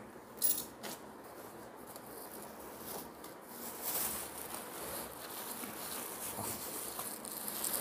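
Cardboard box and plastic wrapping rustling and crinkling as a tripod is worked out of its carton. There is a brief scrape about half a second in, and steadier crinkling from about four seconds in.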